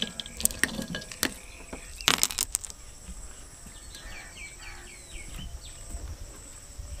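A steady high insect hum, with a few sharp clicks and clinks in the first three seconds, the loudest a quick cluster about two seconds in, then a bird chirping a quick run of short falling calls about four seconds in.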